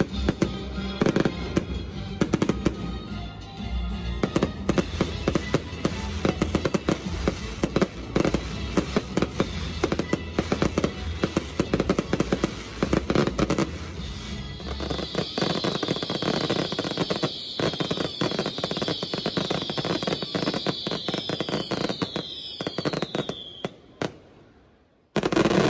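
Fireworks display: a dense run of bangs, pops and crackles from aerial shells and fountains, with music and its bass playing underneath for the first half. From about halfway through, a long run of high, repeated falling whistles rides over the crackle. Near the end the sound drops out briefly, then a loud burst of bangs.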